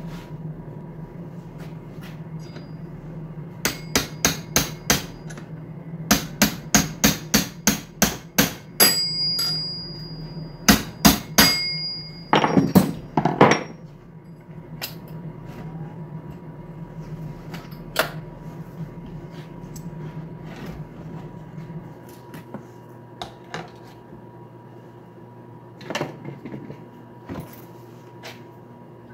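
Repeated sharp hammer-like metallic taps in quick runs of several strikes, some leaving a brief ring, while chainsaw parts are fitted back together on a workbench. A steady low hum runs underneath and stops about three-quarters of the way through.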